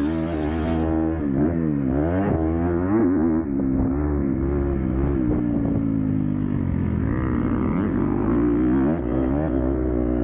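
Dirt bike engine running under riding load. The revs dip and climb sharply a few times about two seconds in, then hold fairly steady with smaller rises and falls.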